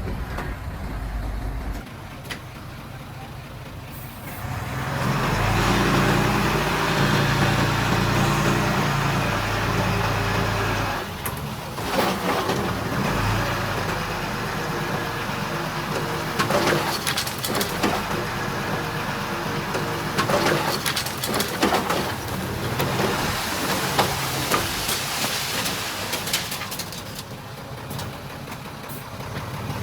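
Heavy earth-moving machinery working: an engine runs loud and steady for several seconds, then gives way to a lower running engine with repeated clanks and knocks.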